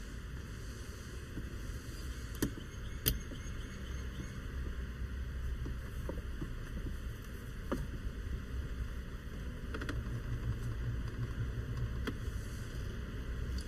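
Steady low rumble of a car's cabin, with a few short light clicks and taps scattered through it.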